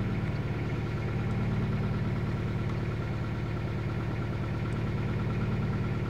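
A 2000 Toyota Celica GT's 1.8-litre four-cylinder engine idling steadily. It is running a bit rough from a dead misfire on cylinder 2 and a weak spark on cylinder 3, which the technician puts down to a bad ignition coil.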